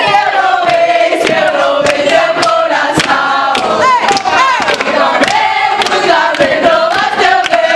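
A crowd of young people singing and shouting together at the top of their voices, with hand claps and high whoops.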